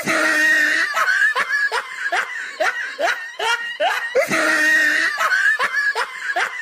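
A person laughing hard in quick, rhythmic bursts, about three a second, each one rising in pitch.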